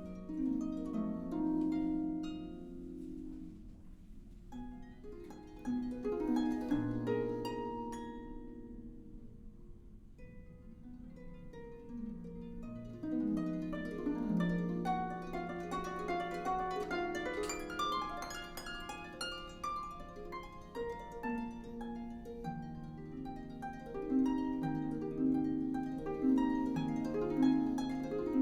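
Solo concert harp playing a flowing run of plucked notes that ring on and overlap. The passage is light at first and grows fuller and louder about halfway through.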